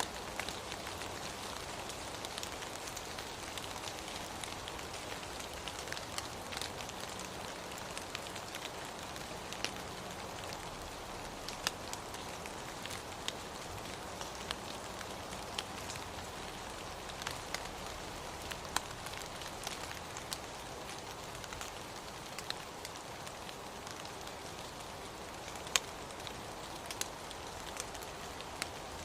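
Steady rain falling, with scattered sharp taps of single drops striking nearby surfaces; one drop near the end is the loudest.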